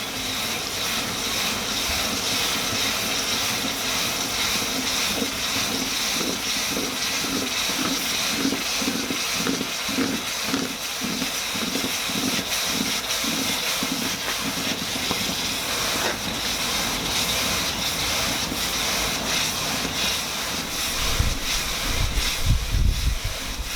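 Hot wrought-iron post anvil being quenched in water to harden it: a loud hiss of boiling water and steam that starts suddenly and goes on steadily. A pulsing of about two beats a second runs through the middle, and a low rumble comes near the end.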